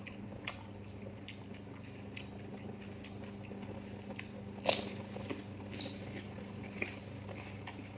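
A person chewing and biting food in small, crisp, moist clicks, with one sharper crunch just before the middle.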